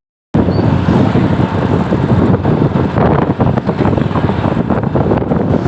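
Loud roadside traffic noise with wind buffeting the microphone, cutting in after a brief dropout at the start; no horn melody is heard.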